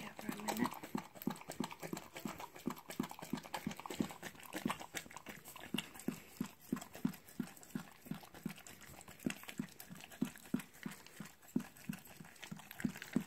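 A whelping mother dog panting steadily and quickly, about three breaths a second, as she labours and tends a newborn puppy.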